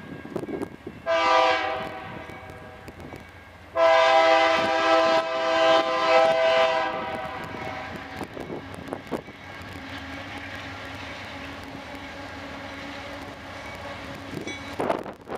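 BNSF diesel freight locomotive sounding its multi-chime air horn as it approaches: a short blast about a second in, then a long blast of about three seconds. After the horn stops, the locomotive's diesel engine runs steadily, with the train noise growing louder near the end as it comes close.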